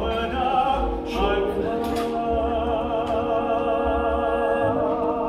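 Live musical theatre singing with orchestral accompaniment: a couple of short sung phrases, then a long held note with wide vibrato from about two seconds in.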